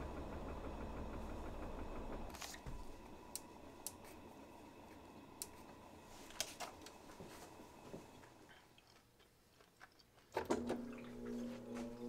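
Whirlpool top-load washer in manual test mode: a low motor hum dies away in the first two seconds, then scattered clicks and knocks as the shift actuator repositions from agitate to spin. After a short silence near the end, the drive motor starts with a steady hum and a rising whine as the basket begins to spin up for the high-spin test.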